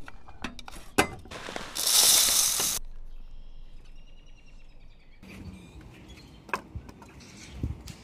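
Handling a tube bird feeder with a metal roof: sharp clicks and knocks as the lid is worked, then a second-long rush of loose seed going into the feeder. Faint high chirps of birdsong follow, then more knocks as the feeder is handled.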